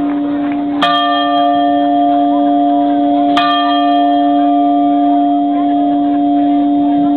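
Church bell tolling slowly, struck twice about two and a half seconds apart, each stroke ringing on, over a steady low hum. It follows a lament for the dead and sounds as a death knell.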